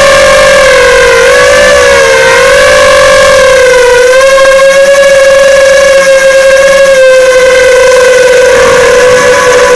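FPV drone's motors and propellers whining loudly, picked up by the camera on board. The pitch wavers up and down a little, then holds steadier through the second half.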